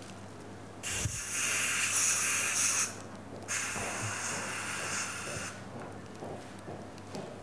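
Dental equipment hissing at a patient's mouth in two bursts of about two seconds each, starting and stopping sharply.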